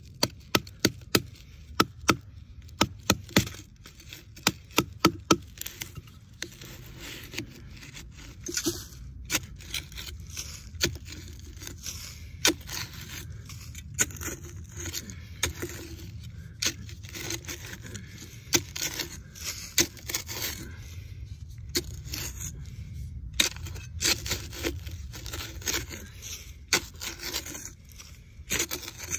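Small high-carbon-steel folding survival shovel digging into hard, dry ground: a quick run of sharp knocks as the blade is driven in over the first six seconds or so, then irregular scraping and chopping as dirt is loosened and scooped out.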